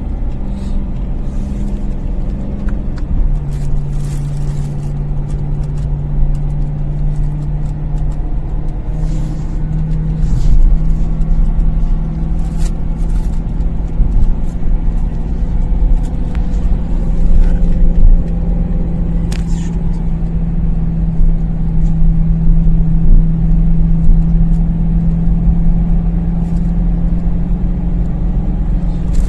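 BMW M3 E93's 4.0-litre V8 running with a steady drone, broken at irregular intervals by sharp pops: the engine is misfiring.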